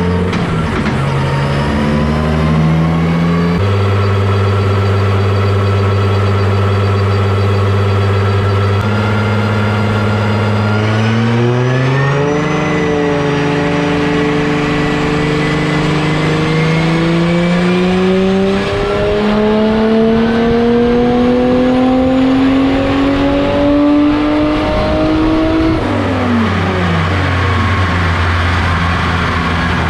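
1.5JZ straight-six engine of a 180SX drift car running on a dyno under load: held at a steady speed, stepped up, then revved in one long steady climb of about twelve seconds before the revs drop sharply near the end and settle at a lower steady speed.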